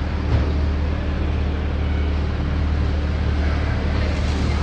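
Steady low engine hum with a wash of traffic noise, unchanging throughout.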